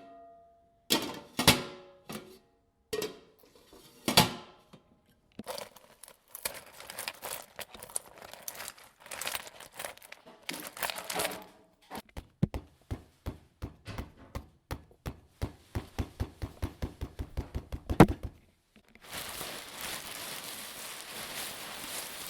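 A string of improvised sound effects: a few ringing knocks, then crinkling and crackling, a fast, even run of clicks, one sharp loud knock about eighteen seconds in, and then a steady hiss.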